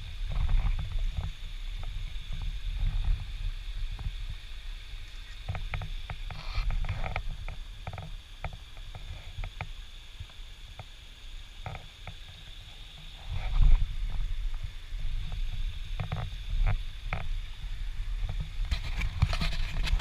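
Footsteps crunching irregularly on dry leaves and creek stones, over a low rumble on the camera microphone that swells loudest a little past halfway, with a faint steady high hiss.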